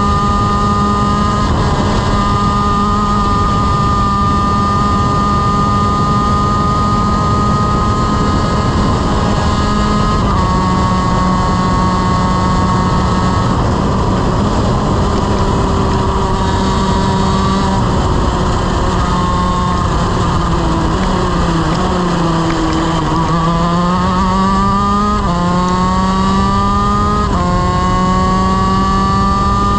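Honda CR125 two-stroke shifter kart engine at full throttle, heard onboard, held high in the revs with small sudden drops in pitch at upshifts. Around twenty seconds in the revs fall away as the kart slows for a corner, then climb again through three quick upshifts, each a rising whine cut by a sudden drop.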